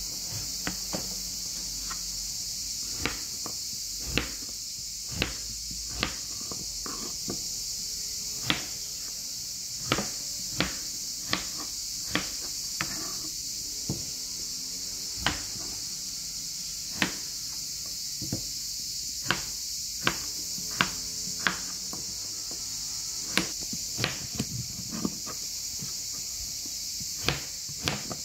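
Kitchen knife cutting potatoes on a plastic cutting board: sharp, irregular knocks, roughly one a second, each time the blade hits the board. A steady high hiss runs underneath.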